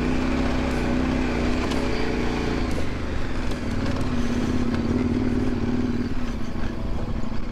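KTM adventure motorcycle engine running at low, fairly even revs on a steep descent, its pitch dipping briefly about three seconds in and easing off again near the end.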